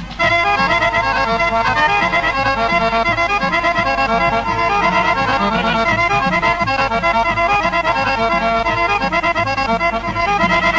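Bulgarian Thracian folk band music: a fast, densely ornamented instrumental melody over a steady low beat.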